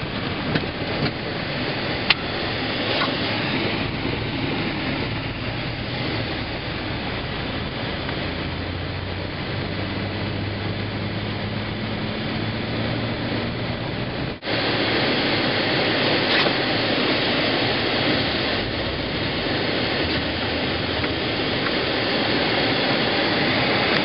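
Steady road and engine noise inside a car or truck cab driving on snow-covered roads, with a low engine hum coming up partway through. About fourteen seconds in, the noise cuts out for an instant and returns louder.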